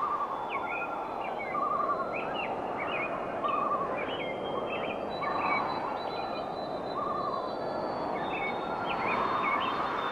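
Birds calling: quick chirps and a short warbling call repeated about every one and a half to two seconds, over a steady background hiss.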